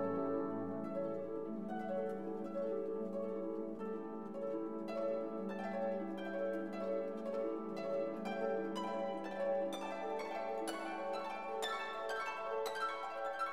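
Instrumental background music: plucked string notes over held tones, the plucked notes coming thicker from about halfway through.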